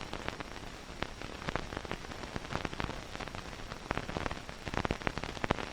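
Surface noise of an old film soundtrack: a steady hiss strewn with irregular crackles and pops.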